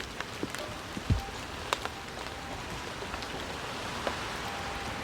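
Steady rain falling, with scattered louder drops dripping and ticking on nearby surfaces.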